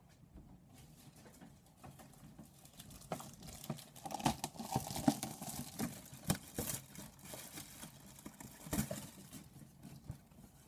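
A cardboard headphone box with a plastic window being handled: irregular rustling, scraping and sharp taps, busiest from about three to nine seconds in.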